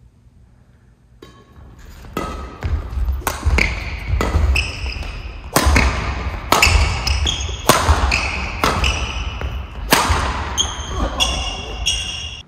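Badminton singles rally on a wooden sports-hall floor: racket strikes on the shuttlecock mixed with running footsteps and short squeaks of court shoes, starting after about a second of quiet and cutting off suddenly at the end.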